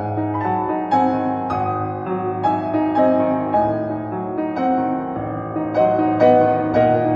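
Background piano music: single notes and chords struck several times a second in a flowing melody.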